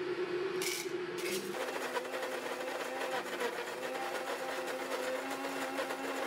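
Electric coffee grinder running steadily with a whirring hum and rapid fine ticking, the hum dropping lower in pitch about a second in.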